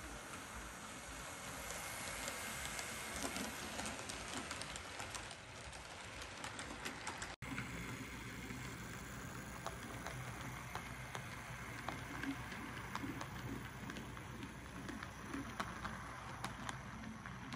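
Model trains running on their track: a small-scale train's wheels ticking rapidly over the rails with a steady hiss. After a sudden cut about halfway through, a larger-scale train's motor hums low and steady under wheel clicks as its cars roll by.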